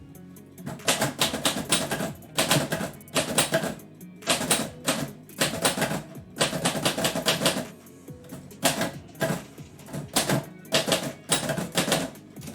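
Typewriter keys striking in quick bursts of rapid clacks with short pauses between, on a typewriter fitted with a new platen. Background music plays underneath.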